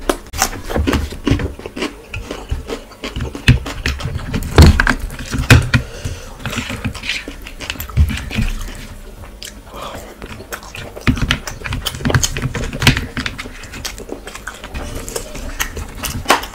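Eating sounds: loud, irregular crunching and chewing, starting with a bite of raw cucumber, with wet smacks and clicks from the mouth and from fingers mixing rice and curry on a steel plate.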